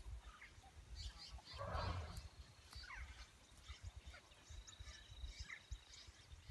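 Birds of the bush chirping and calling on all sides, with a thin steady high tone for a few seconds, while Dorper and Pedi sheep crop grass close by, a rustling crunch of torn grass about two seconds in.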